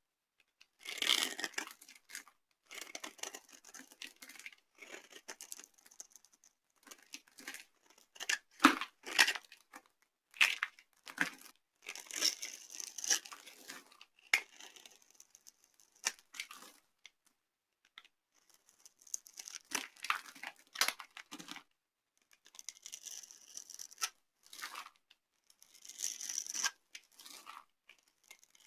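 Dry soap being crushed and crumbled: crackling, crunching noise in irregular bursts, with a few sharper loud cracks about nine seconds in.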